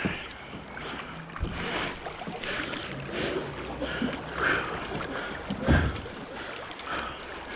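River water splashing and moving around a kayak, in short uneven hissy bursts. There is a dull knock about a second and a half in and a louder low knock near six seconds, typical of a kayak hull bumping.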